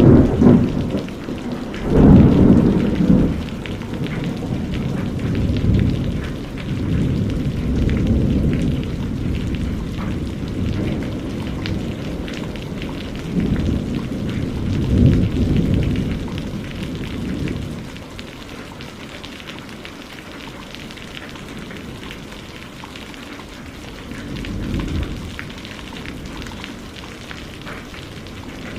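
Steady rain with rolling thunder. Low rumbles swell about two seconds in, again in the middle, and once more near the end, and the storm eases a little in the second half.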